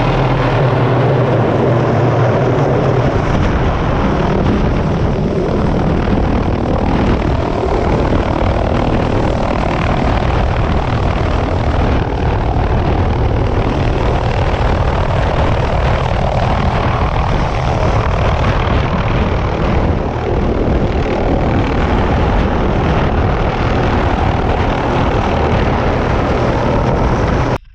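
Helicopter in flight: loud, steady engine and rotor noise. It cuts off abruptly near the end.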